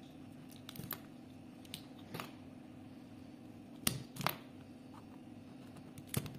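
Indian peafowl eggshells crackling as fingers pick and peel away broken shell. There are several short, crisp crackles: around one second in, near two seconds, twice near four seconds (the loudest) and once near the end, over a faint steady hum.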